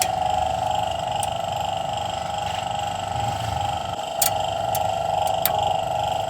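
A steady high whine that wavers slightly, with a few short sharp clicks and taps over it.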